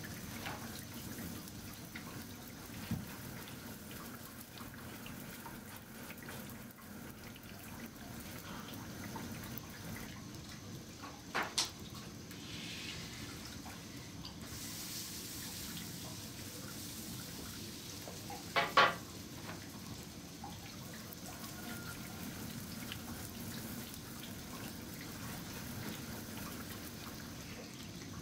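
Flatbread sizzling faintly and steadily on the hot iron top of a wood stove. A wooden spatula knocks sharply against the metal a few times: once early on, then twice in quick succession near the middle, and twice more, louder, later.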